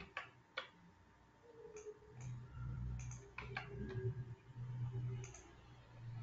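A few scattered sharp clicks from a computer mouse and keyboard. From about 2 s in, a low hum comes and goes in stretches and is louder than the clicks.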